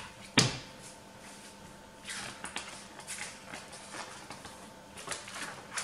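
Paper pages of a thick spiral-bound instruction booklet being flipped and turned by hand, with a sharp knock about half a second in, then several bouts of paper rustling.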